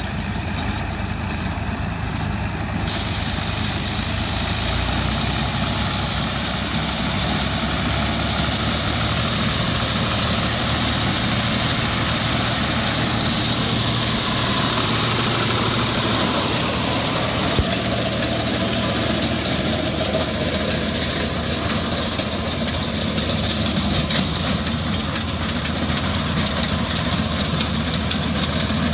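Fiat tractor's diesel engine running steadily under load, pulling a front-mounted reaper binder through standing wheat while the binder's cutter bar and conveyors run.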